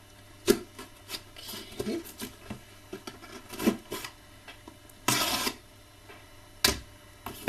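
A cardboard shipping box being cut open and handled: scattered clicks and knocks of the cardboard and the cutter, light rustling, and a short ripping sound of tape or cardboard about five seconds in.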